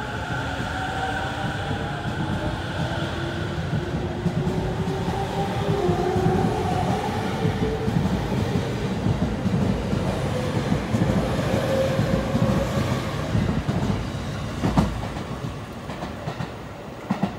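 E231-500 series electric commuter train pulling out and accelerating, its VVVF inverter and traction motors whining with rising pitch over the rumble and clatter of the wheels on the rails. The whine fades as the train draws away, and two sharp knocks come near the end.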